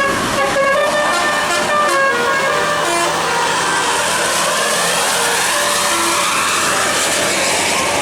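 A bus's 'telolet' multi-tone musical air horn playing a quick tune of stepped notes, which stops about two and a half seconds in, leaving the steady noise of the passing bus.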